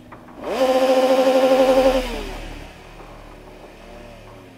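A motorcycle engine revved sharply. It climbs to high revs, holds there with a fluttering note for about a second and a half, then drops away.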